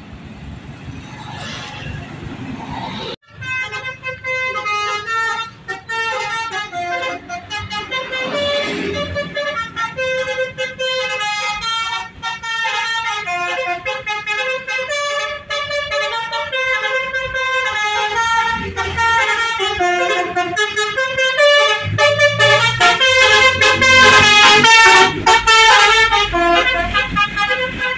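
Tour bus multi-tone "telolet" musical air horn playing a quick, stepping melody of changing notes, growing louder as the bus draws near and passes. Road traffic and a motorcycle are heard briefly at the start, before a sudden break about three seconds in.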